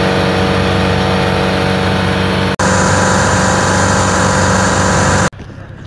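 Outrigger boat's engine running at steady speed, loud, with a hiss of rushing water and wind over it. There is a brief break about two and a half seconds in, and near the end it cuts off suddenly to a much quieter background.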